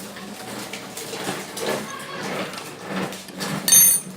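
Small clicks and knocks of a water-filter faucet's metal and plastic parts being unscrewed and handled with a spanner, as the dripping tap is taken apart. A sharp, ringing clink near the end is the loudest sound.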